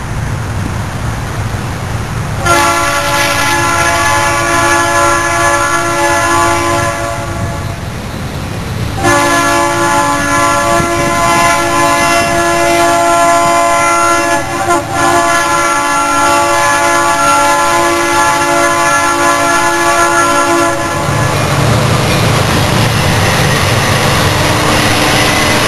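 Norfolk Southern SD60M locomotive's multi-note air horn sounding for the approach in two long blasts, the first about four seconds and the second held about twelve seconds. Once the horn stops, near the end, the diesel engines of the lead locomotives rumble as they come alongside.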